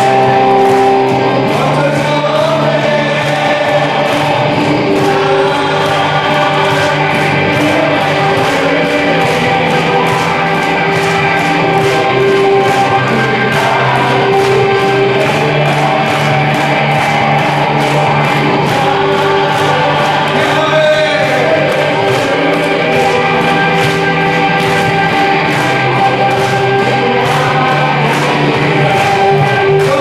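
Upbeat praise song playing: group singing over a steady beat, with a falling swoop effect about two-thirds of the way through.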